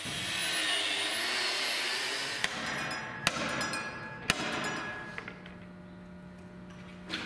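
A hammer striking the steel front subframe: a lighter tap followed by two sharp metallic blows about a second apart, after a steady hiss.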